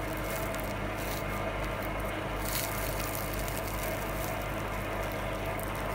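Steady low background hum with a faint hiss, holding level throughout, with no distinct crunch standing out.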